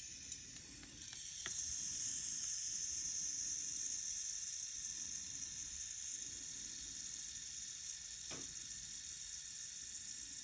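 Blowtorch flame hissing steadily while it heats the seized exhaust manifold nuts, growing louder about a second and a half in.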